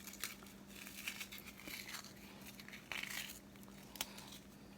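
Faint kitchen handling sounds: light rustling and crinkling with a few soft clicks and knocks, over a faint steady hum.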